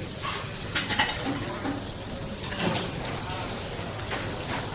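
Beef steak sizzling on a grill in a steady hiss, with a few sharp clinks of plates and utensils about a second in and again near three seconds.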